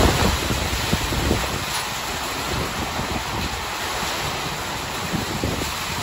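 Monsoon thunderstorm: strong wind driving heavy rain in a steady rushing hiss, with gusts buffeting the microphone in low rumbles near the start and again near the end.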